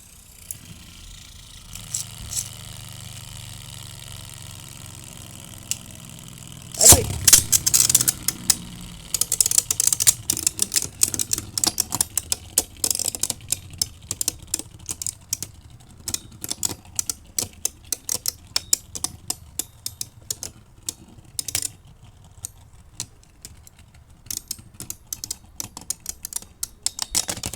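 Beyblade spinning tops in a plastic battle stadium: a steady low whir, then a loud clash about seven seconds in, followed by rapid clicking and rattling as the tops strike each other over and over until one loses.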